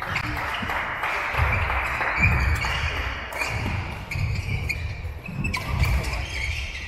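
Sports hall din from several badminton courts: a steady wash of voices and noise, loudest in the first few seconds, over repeated dull thuds on the sprung wooden floor.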